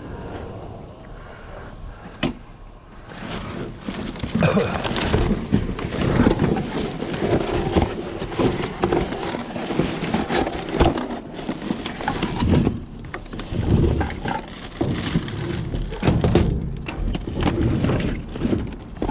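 Rummaging through junk in a dumpster: irregular clattering, knocking and rustling of debris being shifted, starting about three seconds in after a single sharp knock.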